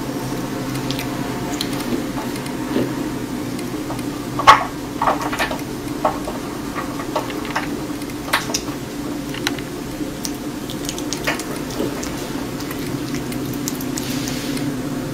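A kitten biting and chewing the flesh of a watermelon wedge: scattered short, wet, squishy bites, the loudest about four and a half seconds in, over a steady low background hum.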